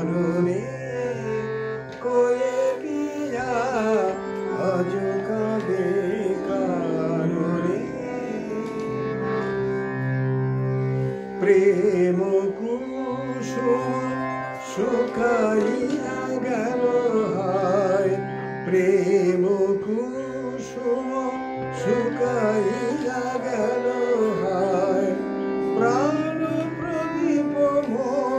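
A man singing in Indian classical style: a continuous, richly ornamented vocal line with many glides and turns between notes, over a steady drone accompaniment.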